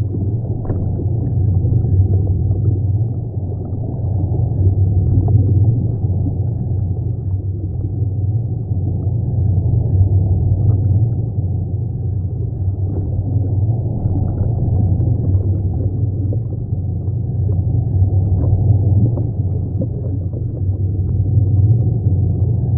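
Steady low watery rumble that rises and falls slightly in loudness, with faint scattered clicks.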